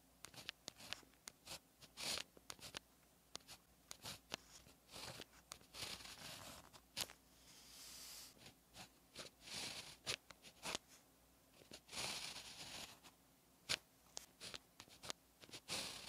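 Pen tip scratching across paper as Chinese characters are written by hand: many short scratchy strokes and light taps, with a few longer drawn strokes.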